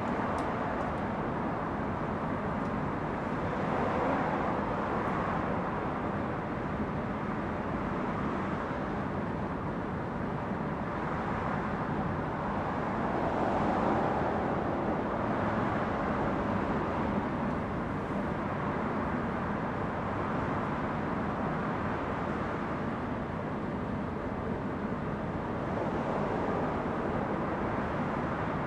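Steady rumble and hiss inside a standing electric commuter train waiting at a station platform, swelling slightly about four seconds in and again around fourteen seconds in.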